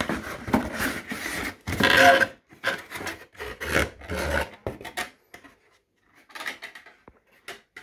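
Corrugated cardboard boxes being handled and slid against each other: scraping and rubbing in irregular bursts, loudest about two seconds in, then dying down to a few faint rubs near the end.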